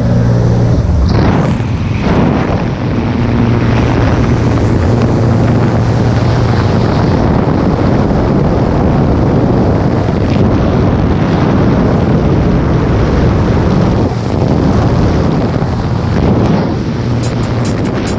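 Small propeller jump plane in flight with its door open: the steady engine and propeller hum under a loud rush of slipstream wind buffeting the microphone. Near the end, a beat of music starts to come in.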